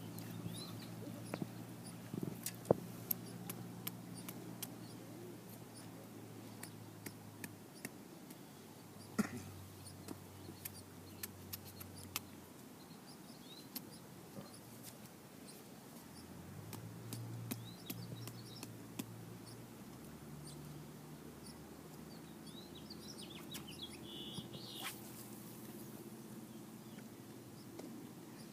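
Outdoor ambience: faint bird chirps, clearest near the end, over a low steady hum that shifts in pitch a few times, with scattered sharp clicks throughout.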